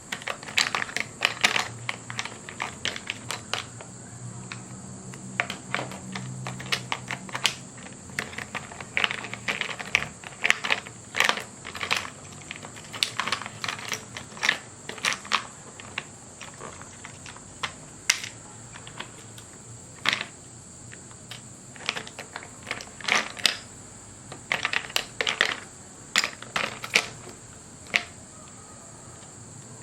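Drawing sounds: a pen or stylus tapping and stroking on a drawing surface in irregular clusters of short clicks and scratches, over a steady faint high hiss.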